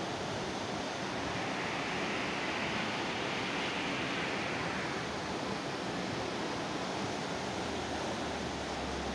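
Steady rushing wind and road noise of a moving car, heard from beside its side window.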